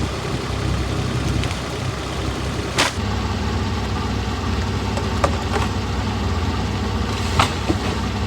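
An engine running steadily, with a few sharp clicks or knocks over it.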